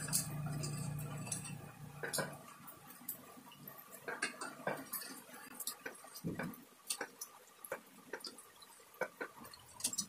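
Metal spoon tapping, clinking and scraping against the pot while dross is skimmed off molten battery lead, a steady run of light irregular clicks. A low steady hum underneath stops about two seconds in.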